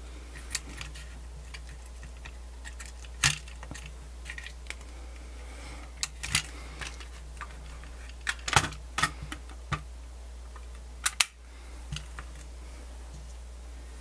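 Irregular light plastic clicks and taps as the open Sony D-142CK CD Walkman chassis and its ribbon cable are handled and the unit is set down on the bench, with a steady low hum underneath.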